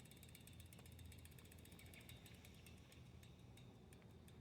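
Faint, rapid ticking of a vintage 10-speed's rear freewheel pawls as the freshly trued wheel spins freely, the clicks spacing out near the end as the wheel slows.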